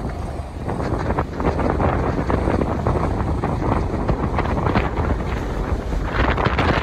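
Strong gusty wind buffeting the microphone, swelling and easing, with choppy, wind-driven water on the reservoir beneath it.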